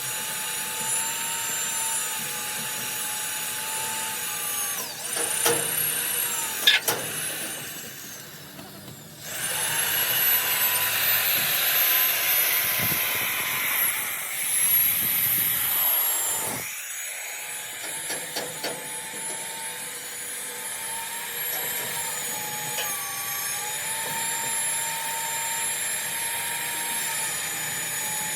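A power tool whines steadily in a metalworking shop, its pitch sagging and recovering as it is loaded. A few sharp metal knocks come about a third of the way in, followed by a louder spell of harsh working noise that cuts off suddenly.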